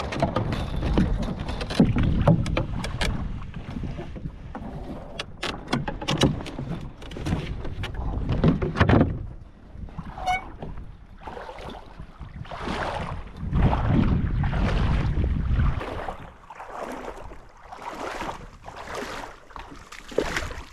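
Wind buffeting the microphone and water splashing and sloshing along the hull of a Sunfish sailboat in shallow water. There are sharp clicks and slaps through the first half, a brief high squeak about ten seconds in, and softer washing surges about once a second near the end.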